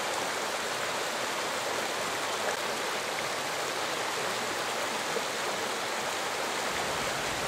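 Small rocky mountain creek running and splashing over stones in little cascades: a steady, even rush of water.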